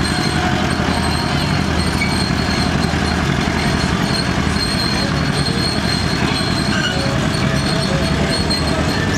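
John Deere BO Lindeman crawler's two-cylinder gasoline engine running steadily under load as it tows a weight-transfer sled, along with the clatter of its steel tracks.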